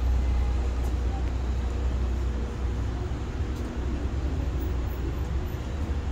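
Street traffic noise: a steady low rumble from a queue of slow-moving cars, with passers-by talking faintly.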